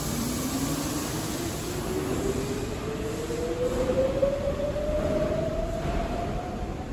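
Chiba Urban Monorail suspended monorail train pulling away from the platform. Its drive gives one whine that rises steadily in pitch as it accelerates, over a steady low rumble.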